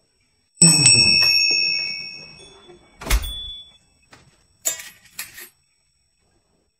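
Door sounds on arriving home: a loud opening clatter with a ringing tone that fades over about two seconds, a heavy thunk of the door shutting about three seconds in, then a few light clicks and rustles.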